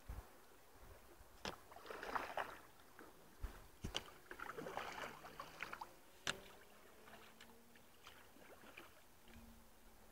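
Faint, occasional sharp knocks and clicks with patches of rustling as a canoe and its gear are handled during setup.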